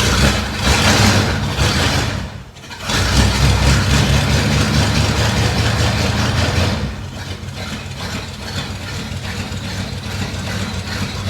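Chevrolet Chevelle Malibu V8 with a straight-through direct exhaust, revved twice with a brief drop between, the second rev held for a few seconds. It then settles about seven seconds in to a steady, rumbling idle.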